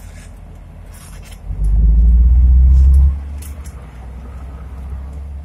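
Diesel engines of crawler pipelayers running under load. One engine revs up hard about a second and a half in, holds for about a second and a half, then drops back to a steady low running.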